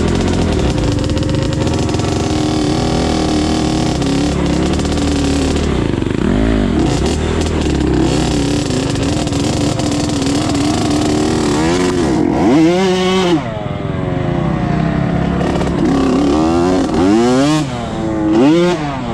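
Dirt bike engine running hard, steady at first, then revving up and down in quick pitch sweeps about six seconds in, around twelve seconds, and several times near the end.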